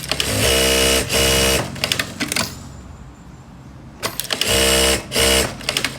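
Bruce R5-Q computerised industrial sewing machine stitching at speed in two runs of about two seconds, each made of short spurts with a steady motor whine and ending in a quick patter of clicks.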